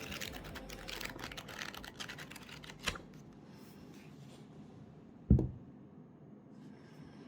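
A quick run of light clicks and rustles, as of things being handled, fading after about three seconds. A single dull thump follows about five seconds in.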